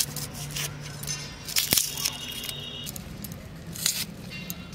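A few sharp clicks and clinks of kitchen handling, with a brief metallic ringing tone about two seconds in.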